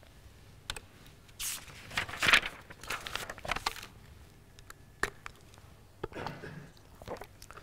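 Rustling handling noise picked up by a clip-on microphone as a plastic water bottle is taken up for a drink, with a few sharp clicks about five and six seconds in.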